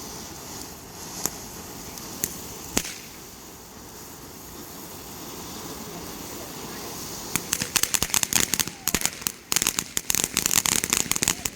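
Fireworks going off: a few single sharp pops in the first few seconds, then from about seven seconds in a rapid, dense crackle of many sharp cracks.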